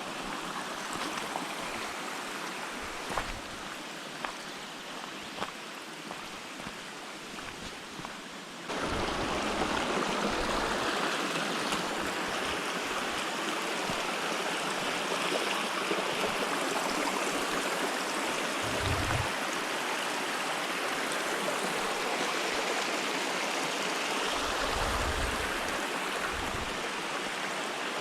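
Turgut Waterfall's water rushing and splashing in a steady wash of noise, which becomes suddenly louder about a third of the way in. A few faint clicks come before the jump.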